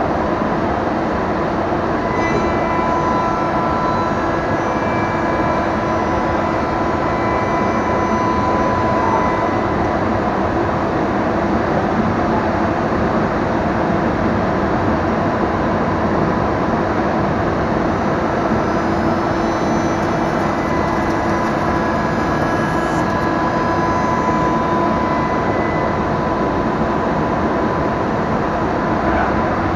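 Biesse Rover A five-axis CNC router machining a wooden board: a steady, loud machine noise with a thin high whine that comes and goes.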